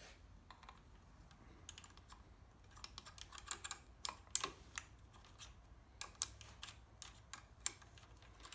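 Scattered light clicks and metallic taps of hand work on a motorcycle's throttle cable adjusters and twist grip. They are sparse at first and come thicker from about the middle, with one sharper click among them.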